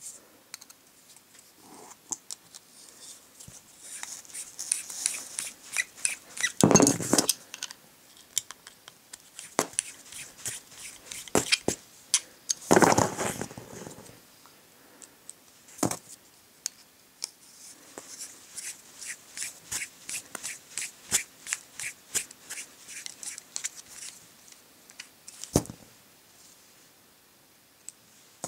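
Small metal clicks and scrapes of an Allen wrench turning set screws into the plastic gearbox housing of a cordless drill motor, in irregular runs of quick ticks. Two louder handling rubs of the housing come about a quarter of the way in and again near the middle.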